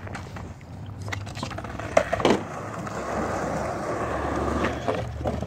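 Skateboard wheels rolling on rough concrete: a couple of sharp knocks of the board about two seconds in, then a steady grinding roll that builds and holds for a few seconds.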